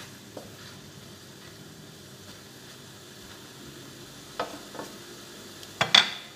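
Shrimp and vegetables sizzling faintly in a stainless steel frying pan while a wooden spatula stirs them. Short knocks of the spatula against the pan come a little past halfway, and near the end there is a loud double clack as the spatula is put down on a plate.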